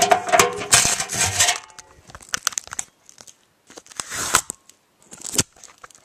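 Sellotape tearing as it is peeled off and the camera being handled right at its microphone: crackling, rustling noise in irregular bursts, heaviest in the first second and a half, then scattered.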